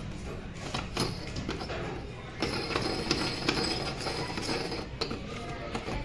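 Knob-type door lockset being turned and rattled by hand, its latch and knob giving a series of metallic clicks and knocks, busiest in the middle of the stretch.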